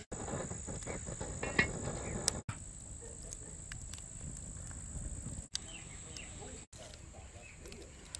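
Insects trilling steadily in a high, thin tone, with a few sharp knocks and clicks in the first two seconds or so and a low rumble underneath. The sound cuts out for an instant a few times.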